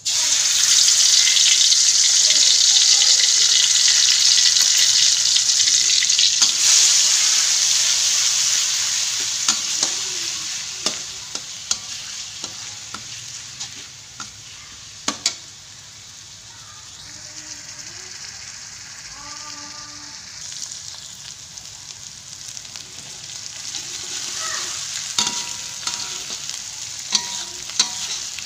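Chopped aromatics hitting hot oil in a wok and sizzling loudly at once, the sizzle easing over the first fifteen seconds or so into a quieter steady frying as they are sautéed until crisp. A metal spatula scrapes and taps against the wok now and then as they are stirred.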